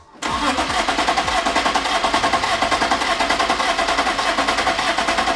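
BMW S52 straight-six in an E30 being cranked over by its starter, an even rapid pulsing of the turning engine, without catching on its first start attempt.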